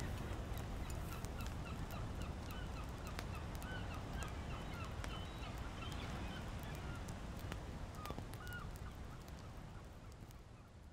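A flock of geese calling in short, quickly repeated honks over a steady low rumble, with the crackle of a wood fire. Everything fades out near the end.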